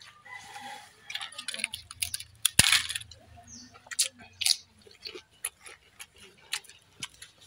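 Eating by hand from steel plates: scattered clicks and crackles of fingers working rice on the plates and of chewing, with one sharp knock and a short noisy crackle about two and a half seconds in.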